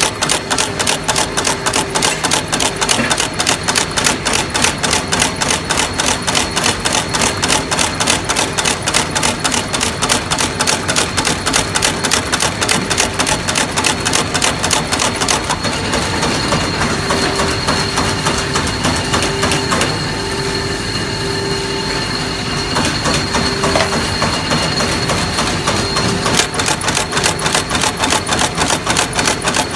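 Shoe-making machine running: a fast, even clacking of mechanical strokes, several a second, over a steady motor hum. The strokes thin out and grow quieter for several seconds past the middle, then pick up again.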